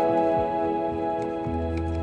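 Background music: soft held chords in a calm new-age style, with a low bass note coming in about one and a half seconds in.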